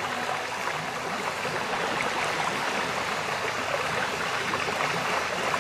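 Steady rushing hiss of a storm coming in, even and unbroken, with no distinct sounds standing out.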